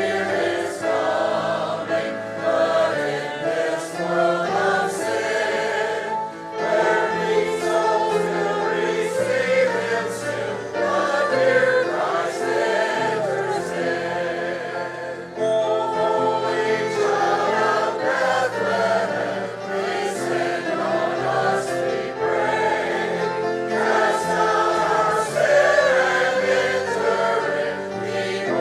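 Congregation singing a Christmas carol together, in phrases with brief breaks between lines.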